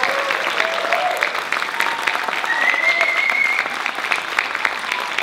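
Audience applauding, with some cheering voices near the start and a high whistle lasting about a second around the middle.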